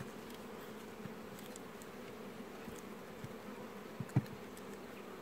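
Steady hum of honeybees over the open frames of a hive. Two sharp knocks about four seconds in as the metal hive tool strikes the wooden frames.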